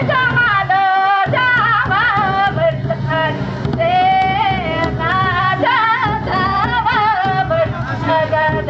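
Folk song: a high singing voice with wavering, gliding pitch over instrumental accompaniment and a steady low drone.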